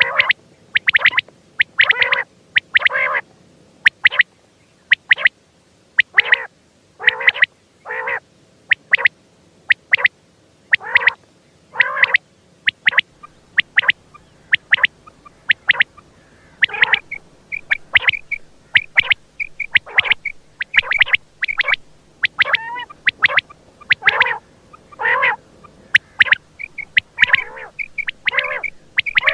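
Quail (batair) calling over and over, short calls coming about one or two a second, with brief higher chirps mixed in from about halfway through.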